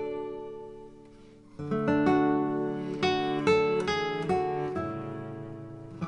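Background music: an acoustic guitar playing. A chord rings and dies away, then new plucked notes and chords come in about a second and a half in.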